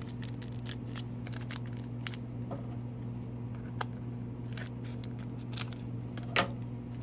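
Trading cards and their foil pack being handled by hand: scattered light clicks and rustles over a steady low hum, with one brief louder sound near the end.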